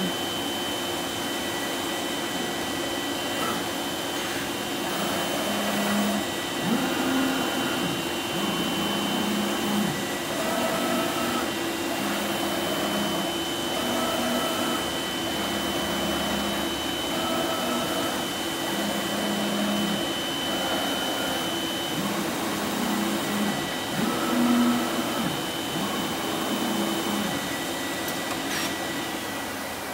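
Colex SharpCut 5x5 flatbed cutting table running. A steady drone carries on throughout, and short motor whines of about a second each come again and again as the cutting head and gantry move over the coroplast sheet.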